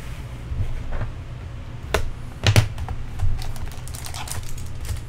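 A cardboard trading-card box being opened and handled: light clicks and scrapes, with a few sharper clicks about two and a half seconds in and a quick run of small clicks after, over a steady low hum.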